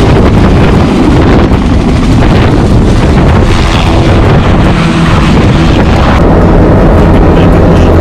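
Light helicopter's rotor and engine noise, with wind buffeting the microphone as it lifts off and passes overhead. About six seconds in the sound settles into a steadier, even drone.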